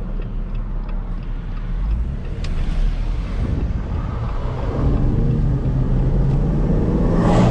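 2018 Jeep Wrangler JL Moab pulling away from a stop and accelerating with the windows down: engine and road noise build steadily from about halfway through. A brief loud rush comes near the end.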